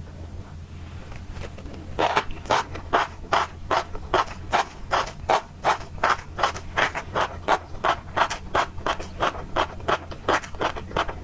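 Close-miked chewing of tobiko, flying fish roe, the small eggs crunching and popping in a quick steady rhythm of about three crunches a second that starts about two seconds in, over a low steady hum.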